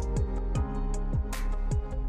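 Background music with a beat of deep, pitch-dropping bass drum hits and sharp high percussion over sustained tones.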